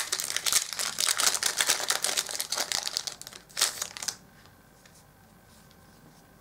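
Empty foil booster-pack wrapper being crumpled and twisted in the hands: a dense crackling crinkle that stops about four seconds in.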